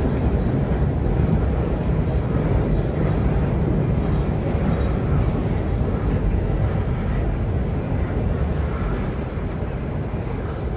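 Loaded stone hopper cars of a Wheeling & Lake Erie freight train rolling over a steel trestle: a steady, heavy rumble with faint metallic scrapes, a little quieter near the end.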